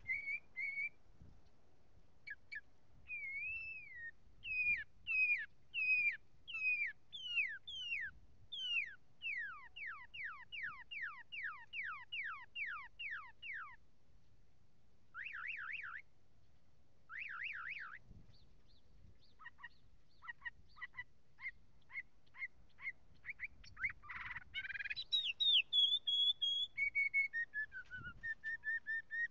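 Northern mockingbird (cenzontle) singing: one phrase repeated several times, then a switch to another. The phrases include runs of quick downslurred whistles, fast trills and strings of short clipped notes, with brief pauses between them.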